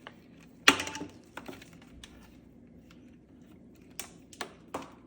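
Handling noise from hard plastic parts and tools: a sharp click under a second in, then a few lighter clicks and taps near the end.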